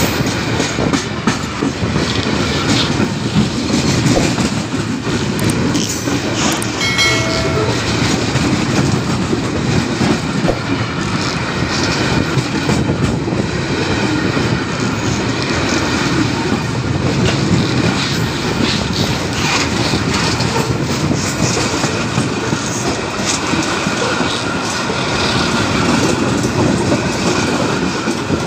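Freight train wagons rolling past at close range, their steel wheels rumbling and clattering over the rails without a break. A brief pitched tone cuts in about seven seconds in.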